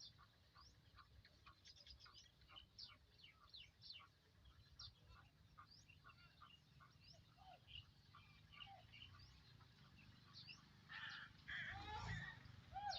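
Faint chirping of birds, many short quick calls overlapping. Louder calls and a low rumble come near the end.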